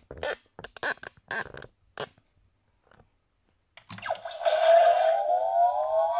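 Several short plastic clicks and clacks as the toy ship-robot is handled, then, about four seconds in, its built-in electronic sound effect starts through a small speaker: a rising whine over a hiss, like a spacecraft powering up, as the orange light on top glows.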